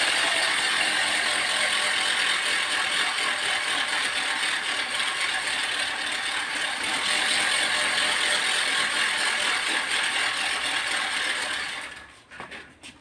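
Homemade spinning noisemaker with a strip set to catch as it turns, giving a steady, continuous ratcheting whirr ('girr girr'); it cuts off near the end.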